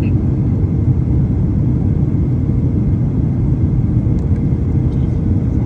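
Steady low rumble of engine and airflow noise inside an airliner cabin during the descent to land.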